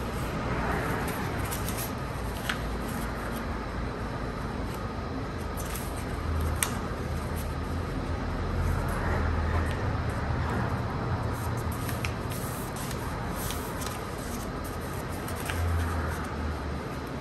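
Paper being folded and creased by hand: a rustling that swells a few times, with a few sharp clicks, over a low steady hum.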